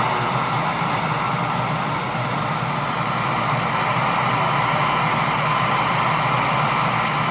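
Radio receiver static: a steady hiss of band noise with no station coming through.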